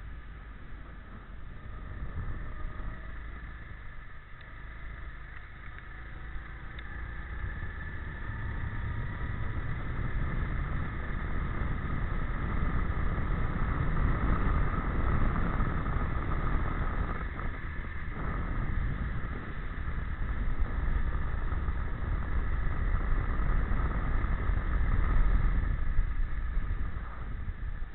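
Go-kart engine heard onboard while lapping at speed, its tone drifting up and down as the kart accelerates and lifts for corners, with a low rumble underneath. It grows louder through the middle, dips briefly about two-thirds of the way in, and falls off near the end.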